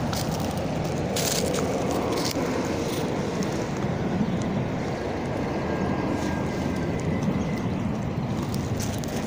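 Calico cat purring steadily, right up against the microphone, with a few brief rustles of fur brushing past it about one and two seconds in.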